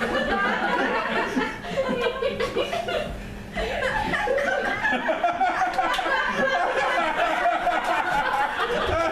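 Audience laughing, with voices talking over it; the laughter dips briefly and picks up again about three and a half seconds in.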